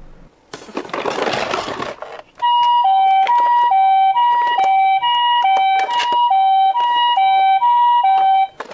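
Toy ambulance's electronic siren playing the two-tone hi-lo ambulance call, a higher and a lower beep alternating about eight times. Before it starts, a short scraping rustle of the toy being handled.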